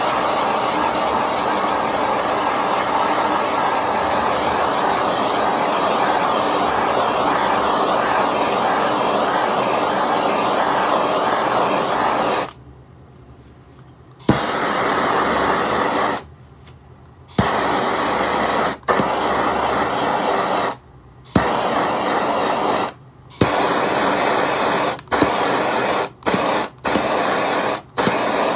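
Small handheld butane torch hissing steadily. After about twelve seconds it cuts out and comes back again and again, with short gaps and a sharp click at several restarts.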